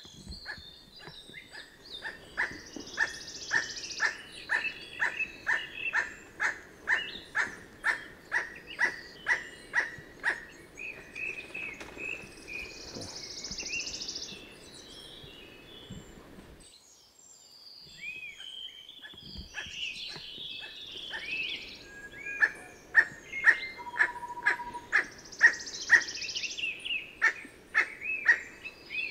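Emerald toucanet giving its dry, barking call over and over, about two notes a second. The series breaks off for about two seconds past the middle, then starts again. Other birds chirp higher up in the background.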